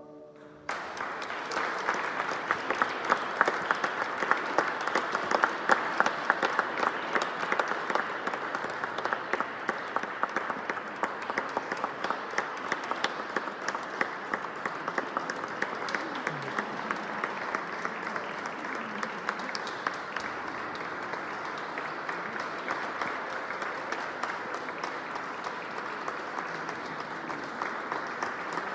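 Audience applauding after a pipe organ's final chord stops right at the start. The clapping begins under a second in, is strongest over the first several seconds, and then goes on a little softer and steady.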